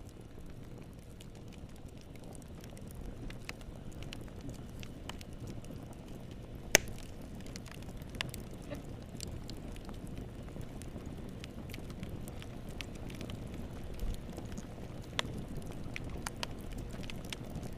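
Wood fire burning in a fireplace: a steady low rumble of flames with scattered crackles and pops, one sharp loud pop a little before the middle.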